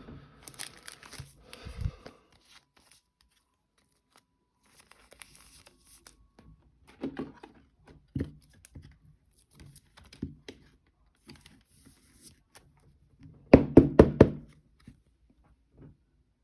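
Trading cards and their plastic sleeves and pack wrappers being handled on a tabletop: soft rustling and crinkling with scattered light taps, and a quick run of louder knocks about thirteen seconds in.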